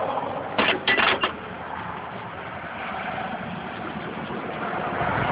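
Road traffic: a passing car's engine and tyres, a steady noise that builds toward the end. About a second in come three short, sharp knocks.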